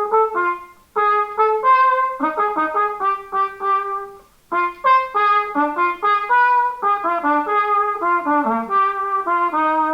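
Solo cornet playing a melody of many short notes, in two phrases with a brief break about four and a half seconds in.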